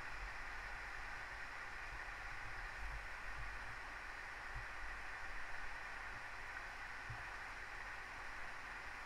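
Steady, even hiss of outdoor background noise, with a few soft low bumps under it.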